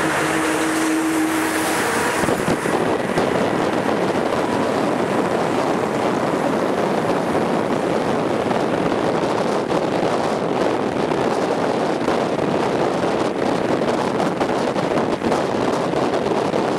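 Steady travel noise of a moving vehicle with wind rushing on the microphone at the window. A brief low hum sounds in the first two seconds while it runs close alongside a lorry.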